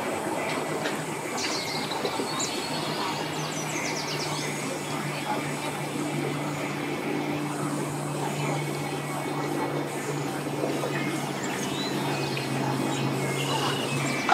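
An engine idling with a steady low drone, while birds chirp now and then.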